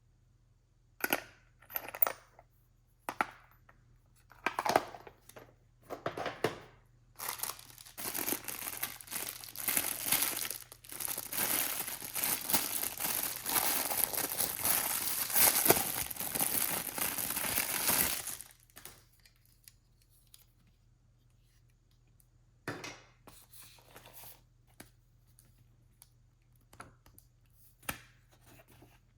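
Packaging being handled and opened by hand. A few short rustles and clicks come first, then about ten seconds of continuous crinkling and tearing, then a few quieter handling sounds.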